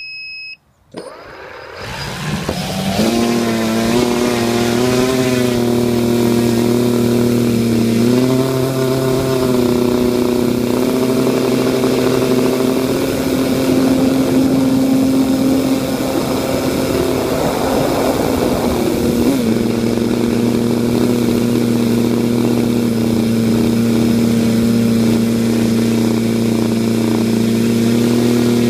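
Homemade R/C tricopter's electric motors and propellers, heard from its onboard camera: a short beep, then the motors spin up with a rising whine about two seconds in and run on as a loud steady whir whose pitch shifts as the throttle changes in flight.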